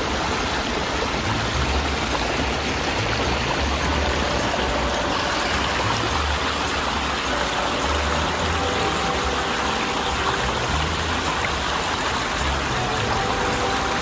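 A mountain stream running over rocks: a steady, even rush of water.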